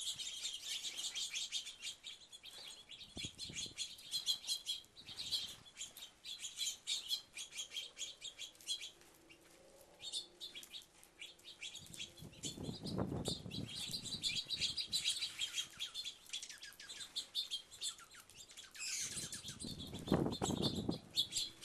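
A flock of small birds at a feeder, chirping rapidly and continuously, with a brief lull partway through. Twice, a louder low rush cuts in: once around the middle and once near the end.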